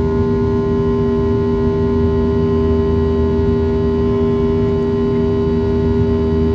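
Boeing 737-700 cabin during the climb after takeoff: the CFM56-7B engines running, a steady rushing drone with several constant hum tones underneath.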